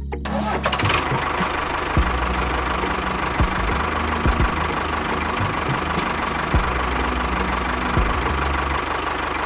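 A small motor running steadily with a thin whine, broken by scattered knocks and clicks.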